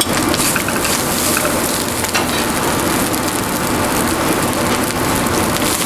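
Fried rice sizzling in a hot wok as it is stir-fried, a steady hiss with scattered light clicks. The rice is being fried dry after the spring onions go in.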